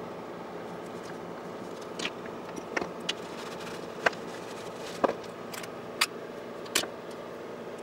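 A handful of short, sharp clicks and light knocks from a sewing machine motor and small parts being handled and set down on a workbench, over a steady background hum.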